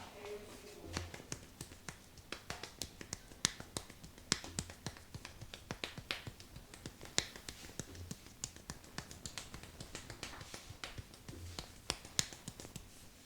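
A barber's fingers snapping and clicking during an Indian head massage: rapid, irregular sharp snaps, a few a second.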